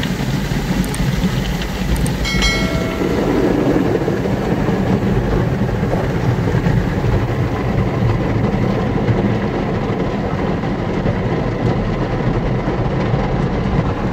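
Automatic car wash heard from inside the car's cabin: water spray and rotating brushes drumming steadily on the windshield and body. A short high tone sounds about two seconds in.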